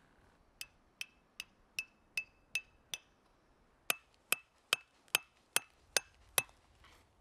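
Hammer driving a steel hook tent peg into frozen snow: two runs of strikes, seven and then eight, about two and a half a second, each with a short metallic ring. The second run is louder.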